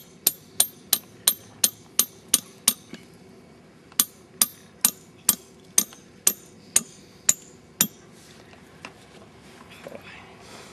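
Hammer blows driving a stake into the ground: two runs of about nine sharp, quick strikes, separated by a pause of a little over a second, the second run slightly slower.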